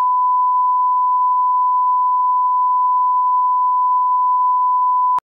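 Steady 1 kHz reference tone played with colour bars at the head of a video master, a single unwavering pure tone used as the audio line-up signal; it cuts off suddenly near the end.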